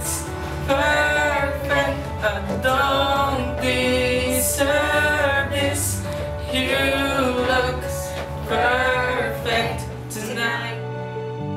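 A song: a solo voice singing a slow melody in phrases with vibrato over sustained accompaniment; the voice stops near the end while the accompaniment holds.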